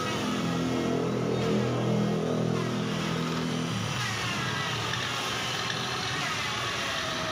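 Corded Hasston electric drill, mounted in a lever drill stand, running under load as its bit bores into 5 mm thick steel plate. A steady motor hum with the grind of the bit cutting, clearest as a tone in the first few seconds; the thick steel is hard, tough going for the drill.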